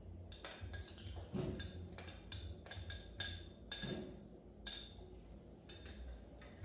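A metal spoon clinking against a glass bowl and a stainless steel saucepan as sweetcorn is scraped from the bowl into the pan: about a dozen light, ringing taps at an uneven pace.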